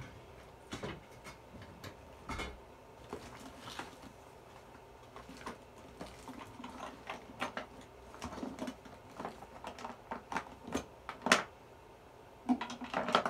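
Makeup items being rummaged through and set down: irregular small clicks, taps and light clattering, with the sharpest knock about eleven seconds in and a quick cluster near the end.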